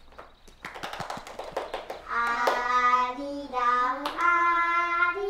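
A quick run of hand claps about a second in, then a child's voice sings a simple tune in long held notes.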